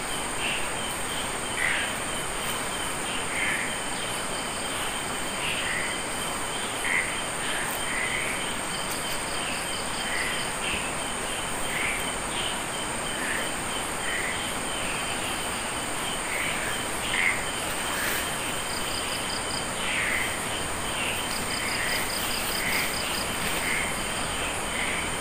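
Night chorus of crickets and other insects: a steady high-pitched trill, with short rapid pulsed trills every several seconds and brief lower calls about every second or two.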